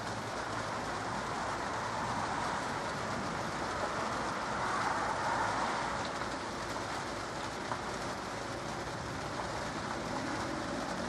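Light rain falling, a steady hiss that swells slightly around the middle.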